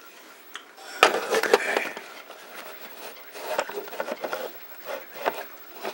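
Handling noise from a camera being picked up and moved: a sharp knock about a second in, then scattered clicks, scrapes and rustling.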